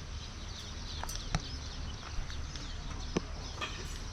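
Outdoor ambience: faint bird chirps over a steady hiss and low rumble, with a few sharp clicks.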